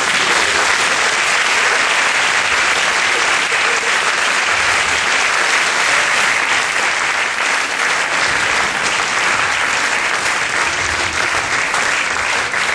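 Theatre audience applauding, bursting into full, loud clapping at once and holding it steadily.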